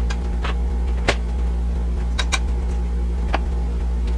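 Steady low background hum, with a few light clicks and taps of a plastic spoon against a steel pot and colander as boiled rice is spooned in.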